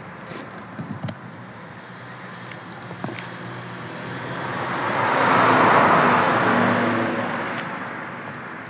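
A road vehicle passes by, its noise swelling to a peak about six seconds in and then fading. Faint crackles and clicks of dry straw strips being handled and woven come through earlier.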